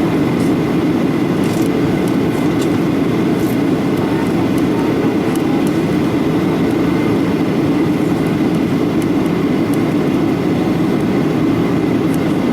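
Jet airliner cabin noise in flight: a steady, deep rush of engine and airflow, with a faint steady high tone over it.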